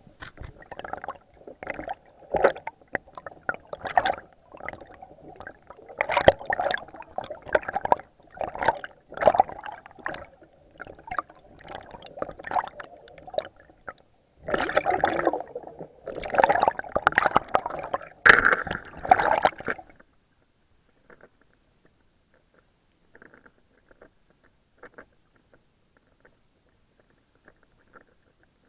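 Sea water splashing and gurgling around a camera at the waterline, in uneven sloshing strokes that are loudest about fifteen to nineteen seconds in. About twenty seconds in it drops to near silence with a few faint ticks.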